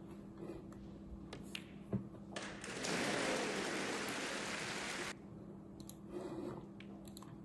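A snooker audience applauding a century break, the clapping starting about two and a half seconds in and cutting off suddenly after about three seconds. Shortly before it comes a single sharp click of balls.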